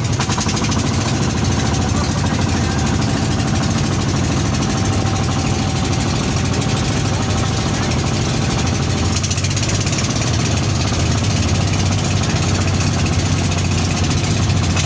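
Engine of a motorised outrigger boat (bangka) running steadily while under way, a loud, fast and even beat.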